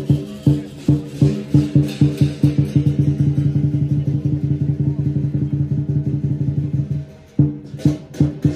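Lion dance percussion: a lion drum with cymbals and gong, beating a fast, dense rhythm over a steady ringing tone. About seven seconds in it drops back briefly, then comes in again with heavy accented strikes.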